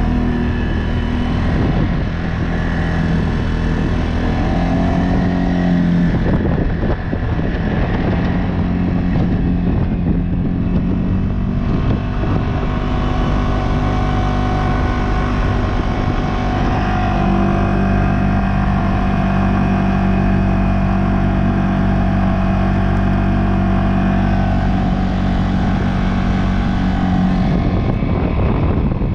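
CFMoto CForce 600 ATV's single-cylinder engine running steadily under way. Its pitch shifts slightly about six seconds in and again about halfway through.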